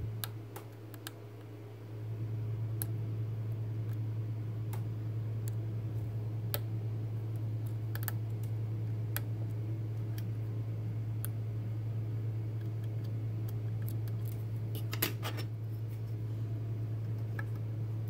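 Lock pick clicking and scraping against the pins inside an Assa Twin 6000 cylinder under tension, in scattered light clicks with a quick flurry about fifteen seconds in. A steady low hum runs underneath, dipping briefly near the start.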